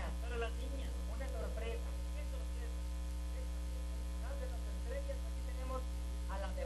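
Loud steady electrical mains hum covering the whole recording, with a faint voice over a microphone in the first couple of seconds and again near the end.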